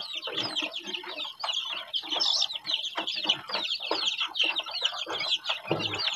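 A flock of two-week-old kampung chicks peeping constantly, many short high chirps overlapping, with scattered rustles and ticks of feed being poured into a plastic feeder and pecked at.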